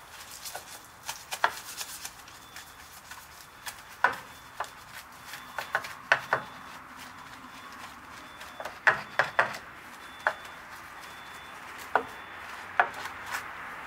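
Hand-held bristle detailing brush scrubbing a soapy alloy wheel and tyre, in irregular sharp scratchy strokes over a light hiss.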